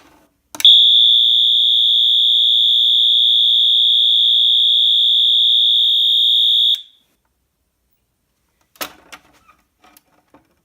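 Wheelock MT horn strobe set to its continuous tone, sounding one loud, steady high-pitched tone for about six seconds before cutting off suddenly. A few faint knocks follow near the end.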